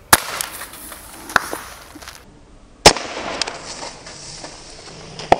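Beretta 84FS CO2 blowback air pistol firing three sharp shots, about two and a half seconds apart, each with a short ringing tail. Fainter clicks fall between the shots.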